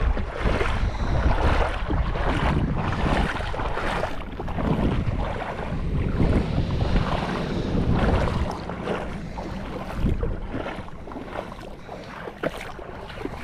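Wind buffeting the microphone over repeated splashing of someone wading through shallow water toward a mudflat.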